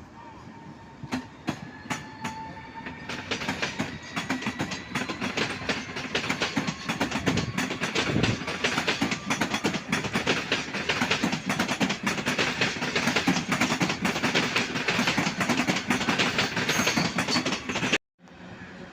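A train rolling past on the tracks, its wheels clattering rapidly and densely over rail joints, with faint squealing tones in the first few seconds. The sound cuts off suddenly near the end.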